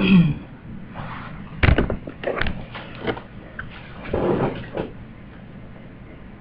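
Handling noise from a webcam being picked up and turned: a knock with a short falling tone at the start, a few sharp knocks over the next three seconds, and a longer rubbing rustle about four seconds in.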